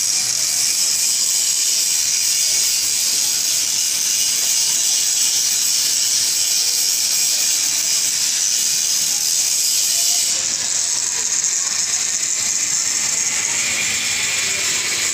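A loud, steady high-pitched hiss, with no distinct strokes or pitch changes; its brightest top end drops away slightly about ten seconds in.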